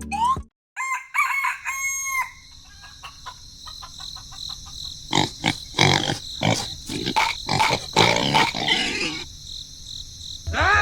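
Chickens clucking: a short pitched call near the start, then a quick run of short clucks through the middle.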